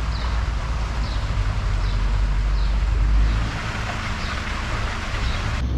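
Steady machine noise: a low hum under a loud rushing hiss.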